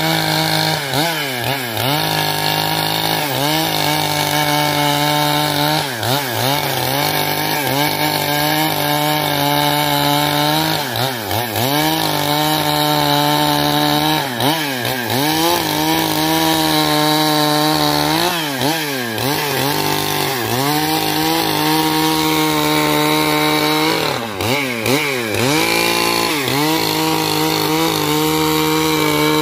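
Stihl MS 661 two-stroke chainsaw at full throttle, ripping lengthwise through a log. Its engine pitch dips briefly and recovers many times as the chain loads up in the cut, with several quick dips close together near the end.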